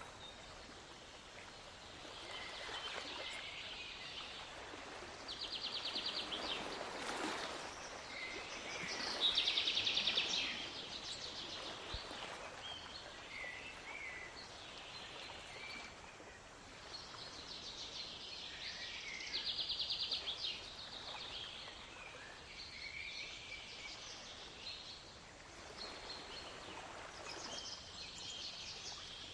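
Songbirds singing in short repeated phrases, several of them fast trills, the loudest about ten seconds in, over a steady wash of waves.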